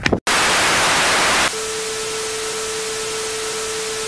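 TV static sound effect: a loud burst of hiss for about a second, then a quieter hiss with a steady tone held beneath it.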